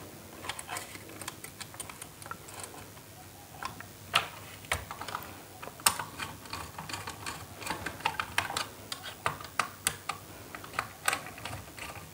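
Irregular small clicks and taps of a screwdriver turning the brass terminal screws on plastic modular switches, with the plastic switch board being handled. A few sharper knocks stand out, about four and six seconds in.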